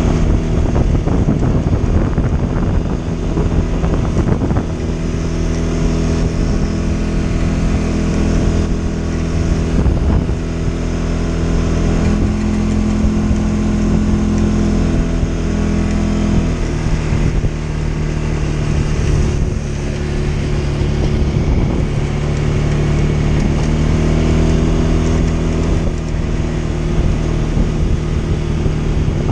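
CFMoto CForce 550 EPS ATV's single-cylinder engine running under way on a dirt trail. The engine note rises and falls as the throttle changes, with a higher-pitched stretch about midway that drops back a few seconds later.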